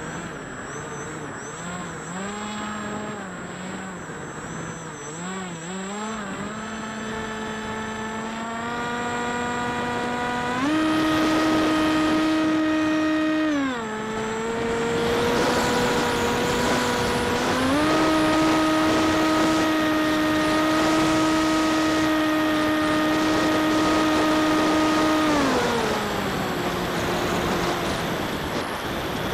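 Onboard sound of an AXN RC plane's electric motor and propeller whining in flight, its pitch wavering at first, then stepping up with throttle about a third of the way in, dropping briefly, rising again and winding down near the end. Air rushing over the plane and microphone runs beneath it.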